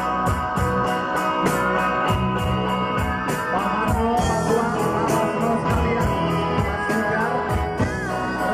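Live rock band playing: drum kit keeping a steady beat under electric bass, guitar and keyboard, with a boy's voice singing into a microphone from about three seconds in.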